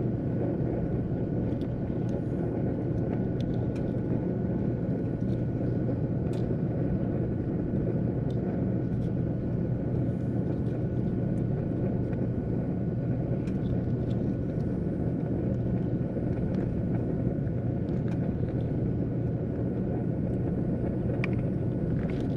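Small 12V cooling fans running with a steady whir and a thin steady whine, powered straight from the RV's 12-volt supply to check that they spin the right way. A few faint clicks of handling come through.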